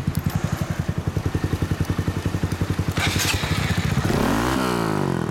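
2014 Honda Grom's single-cylinder 125 cc engine running through a knockoff aftermarket muffler: idling with a steady pulsing beat, then the throttle is blipped about three seconds in and the revs rise and fall near the end.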